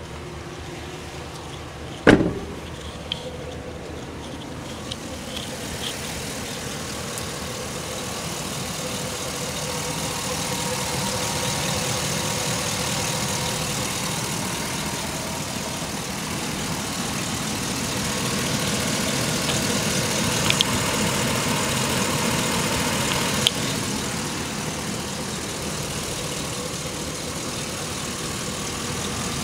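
GM 6.0-litre L96 Vortec V8 idling steadily, getting louder as the engine bay comes close. A single sharp bang about two seconds in.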